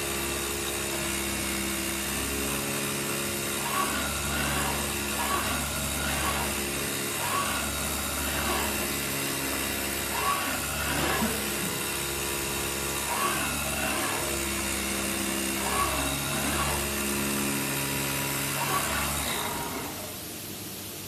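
AOKE DCZ7X CNC flatbed cutter running as its tool head moves back and forth cutting thick EPE foam: a steady machine hum with repeated rising and falling whines every second or two as the head speeds up and slows down. The machine goes quieter near the end.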